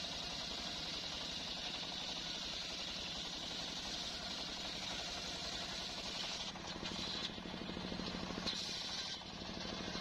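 Sawmill circular saw bench ripping a teak log: the blade's cutting noise over the steady drone of the machine's motor. Near the end the cutting noise breaks up as the blade comes out of the cut.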